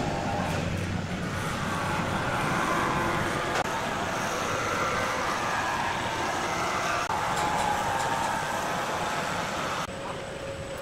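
Chainsaw running loud and steady, dropping to a quieter machine hum near the end.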